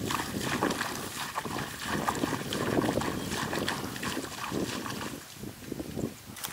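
Footsteps swishing and sloshing through a wet rice paddy, legs pushing through the rice plants in an irregular rustle.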